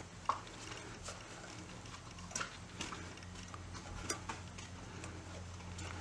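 Gloved hands pushing wire spade connectors onto a microwave magnetron's terminals: a few small scattered clicks and light handling noise over a low steady hum.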